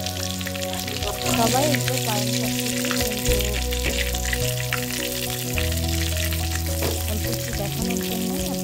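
Besan-battered potato pakoras deep-frying in hot oil, a steady sizzle full of small crackles. Background music with held notes and a changing bass plays under it.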